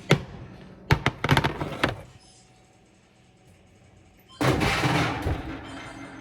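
A sharp knock, then a quick run of knocks and thumps about a second in. After a quiet pause comes a louder stretch of noisy clatter near the end.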